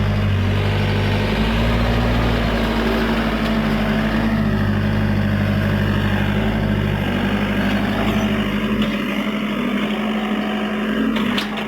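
Hyundai excavator's diesel engine running steadily while it works, its deep rumble easing off about eight seconds in. A few sharp knocks near the end.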